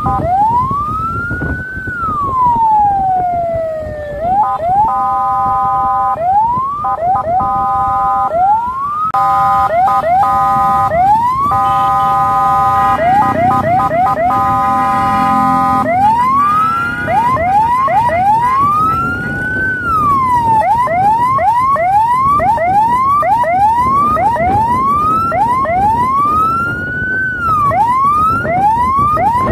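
Electronic vehicle siren switching between modes. It opens with a long rising-and-falling wail, then gives choppy steady multi-tone blasts. From about halfway through it gives rapid rising whoops about one a second, broken twice by long wails, over low road and engine rumble.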